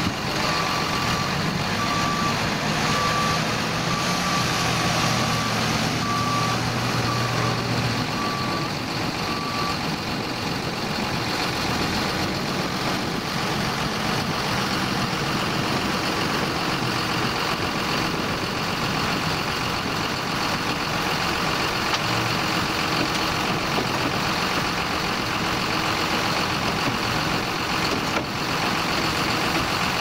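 JCB TM310 telescopic wheel loader's diesel engine working steadily as it loads muck, with its reversing alarm beeping about once a second for the first ten seconds or so.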